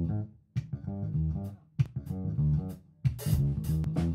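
Background music: bass and guitar playing, with short breaks between phrases and drums coming in strongly near the end.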